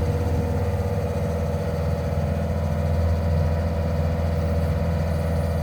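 2006 Bobcat S220 skid steer's diesel engine idling steadily, easing down from slightly higher speed right at the start.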